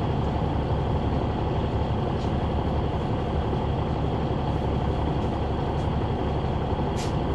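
Interior sound at the rear of a 2004 Neoplan AN459 articulated transit bus: its Caterpillar C9 ACERT inline-six diesel running with a steady, even rumble. A faint short rattle or click comes about two seconds in and again near the end.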